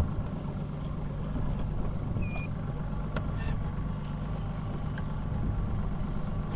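Boat outboard motor running steadily at low speed, a steady low drone. A short knock comes right at the start.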